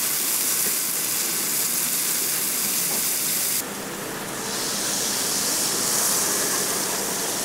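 Ramly burger patties and buns sizzling in oil on a flat-top griddle: a steady hiss. The hiss drops suddenly about three and a half seconds in, then builds back within a second or so.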